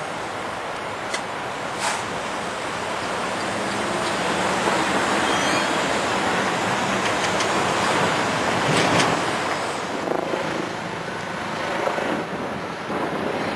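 Amtrak passenger train rolling past on the track with a steady rushing rumble that swells and then fades, a few light clicks from the wheels on the rail, and wind on the microphone.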